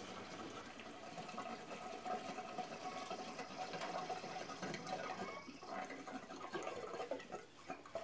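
Gasoline pouring from a plastic gas can's spout into a riding mower's plastic fuel tank. The pour runs steadily and tails off near the end.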